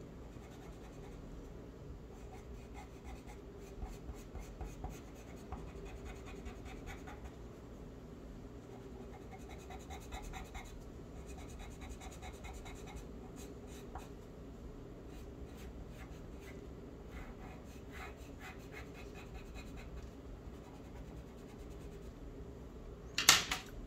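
Pencil drawing on paper: clusters of short, scratchy strokes come and go as lines are drawn. A single sharp click, the loudest sound, comes near the end.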